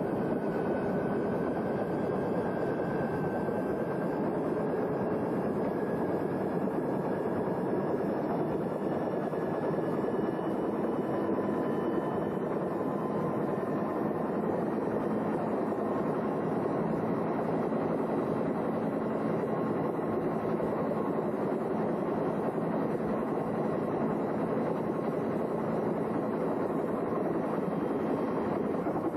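Bell UH-1M Huey helicopter's turbine engine and main rotor running at takeoff power, heard from inside the open cabin: a steady, heavy rotor and engine noise with a faint turbine whine drifting slowly in pitch.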